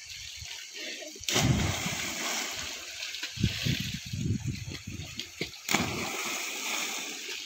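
Two loud splashes of boys jumping into river water, one about a second in and another near the end, with water sloshing in between.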